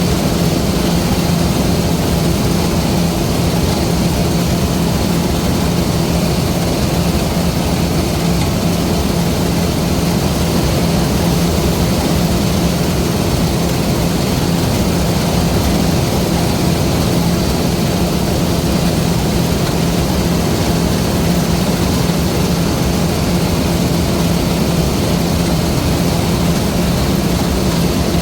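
LOVOL RG130 EVO rice combine harvester running steadily under load: an even engine hum with a constant rushing mechanical noise over it.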